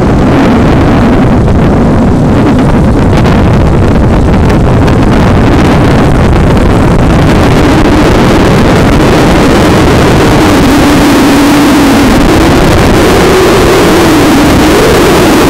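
Engine of a vehicle running at speed alongside the racing horses, its note wavering and rising near the end, buried in heavy wind buffeting on the microphone. Loud and steady throughout.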